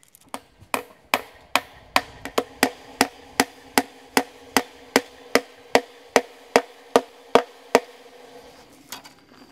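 Hammer driving fence staples into a fence post to fix stretched wire fencing: about twenty sharp, evenly spaced blows, roughly two and a half a second, over a steady ringing tone, stopping about eight seconds in.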